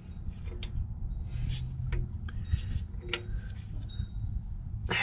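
Scattered light clicks and taps of a brake bleeder screw being tightened after gravity bleeding, with a sharper knock near the end, over a low steady rumble.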